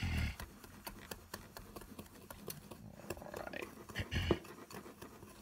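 Small wire whisk stirring a bowl of dry seasoning mix: a quick run of light clicks and a grainy scratching as the wires tap the bowl and sweep through the salt and spices.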